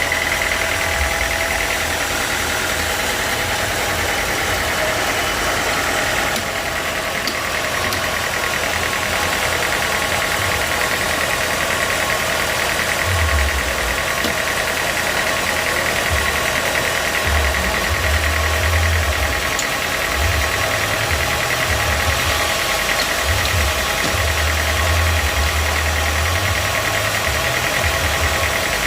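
Sawmill machinery running steadily, an engine with a constant high whine over it, and an on-and-off low rumble joining from about halfway through.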